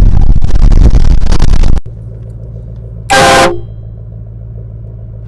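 Portable train horn blaring at full volume, so loud it overloads the recording into distortion, cutting off abruptly about two seconds in. A second, short horn blast of several tones follows about three seconds in, over a steady low engine hum.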